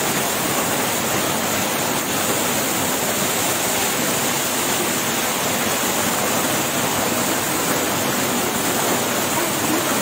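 Waterfall pouring into a shallow pool: a steady, even rush of water.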